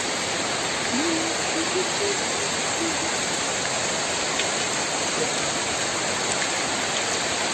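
Heavy rain falling: a steady, even hiss of downpour.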